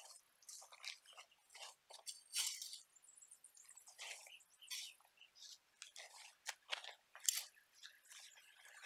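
Shovel digging into a pile of loose garden soil and dumping it into a woven plastic bag: a string of short, gritty scrapes and crunches, one scoop after another.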